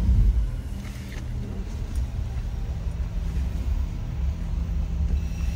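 Car engine and tyre rumble heard from inside the cabin as the car moves forward at low speed: a steady low hum.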